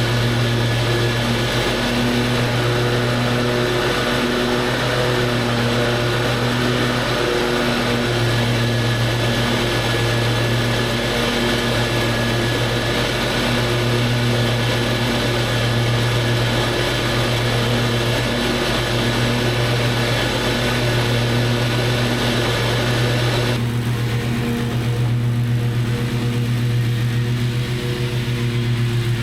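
Lawn mower engine running steadily under load. Near the end the higher hiss drops away suddenly while the engine hum carries on.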